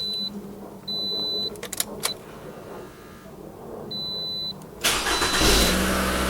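A 2011 Toyota RAV4 engine cranks and starts about five seconds in, then settles into a steady run; it turns right over now that the faulty crankshaft position sensor has been replaced. Before it, a high electronic beep sounds three times and there are a couple of clicks.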